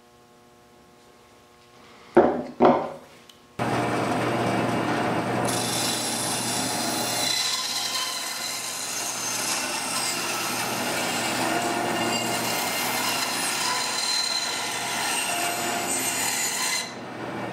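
Band saw cutting through a block of epoxy-soaked denim micarta, a steady sawing noise over the saw's motor hum that starts about three and a half seconds in. It is preceded by two short knocks.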